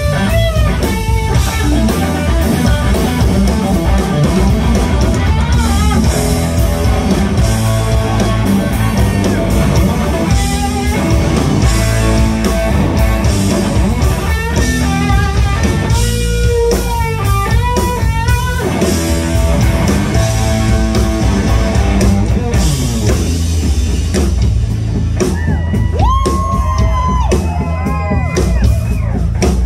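A live band playing blues-rock: a semi-hollow electric guitar takes the lead over a drum kit, with bent, sliding notes near the end.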